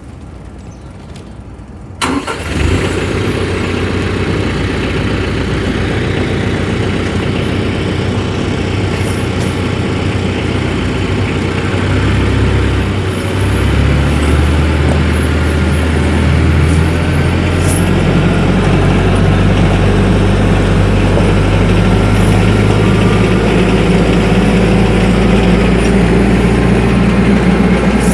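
TYM 474 compact tractor's diesel engine starting up about two seconds in, then running steadily, its pitch shifting partway through as the revs change.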